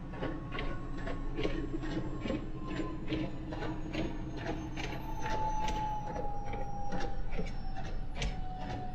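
Inside a semi-truck's cab: the diesel engine running with a steady low rumble, and a regular ticking about two or three times a second over it.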